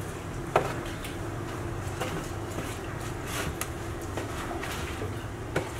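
Bakery workshop sounds while pastry is handled: a steady low hum, with two sharp knocks, about half a second in and near the end, and a few lighter taps between.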